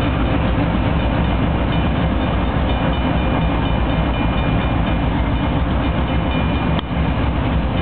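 BNSF diesel locomotives running light through a grade crossing: a steady, deep engine rumble with wheel and rail noise. A crossing warning bell rings over it.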